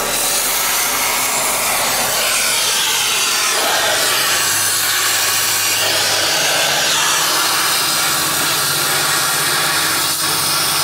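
Gas welding torch hissing steadily while welding a car's exhaust pipe. A steady low hum joins about four seconds in.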